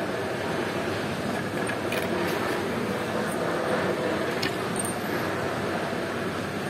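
Steady outdoor background noise, with a few faint light clicks of wooden easel planks being handled.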